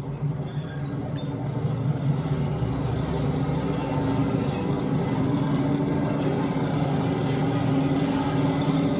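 A heavy vehicle engine running and growing louder over the first few seconds, then holding at a steady drone whose pitch slowly rises.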